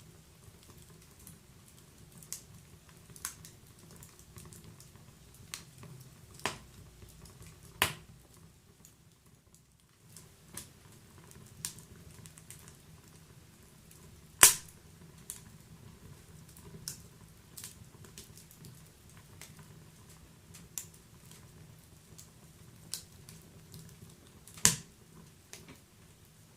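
Wood fire crackling in a fireplace: scattered sharp pops and snaps at irregular intervals over a low steady rumble. The loudest pops come about halfway through and near the end.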